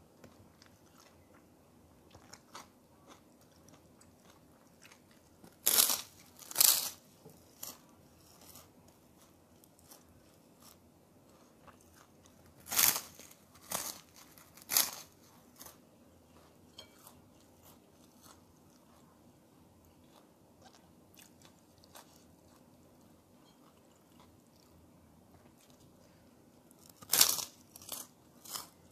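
Close-up crunching of a large white puffed cracker (kerupuk) being bitten and chewed: sharp, loud crunches come in clusters about six seconds in, again around thirteen to fifteen seconds, and near the end, with quieter chewing between.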